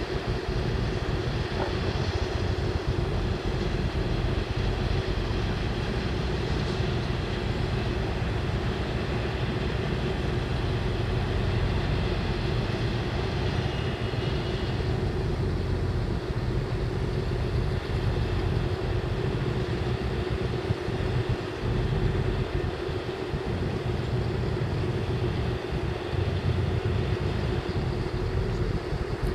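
Training ship's engines running as it comes slowly into harbour to berth: a steady drone and hum, with wind rumbling on the microphone.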